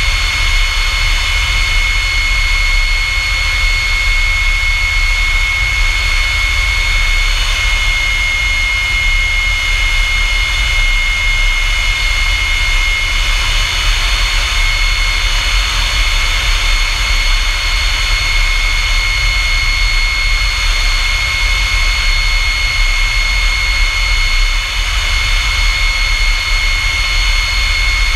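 Pratt & Whitney J57 turbojet of a North American F-100 Super Sabre running steadily: a loud, steady high-pitched whine over a deep rumble.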